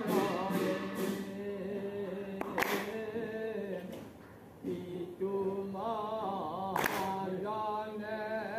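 A group of devotees chanting a prasanga, Assamese congregational devotional singing, in slow, drawn-out unison with a short pause midway. Two sharp claps cut through the singing.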